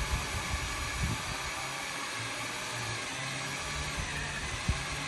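Power drill running steadily as it bores a hole through a dirt-bike wheel rim for a rim lock.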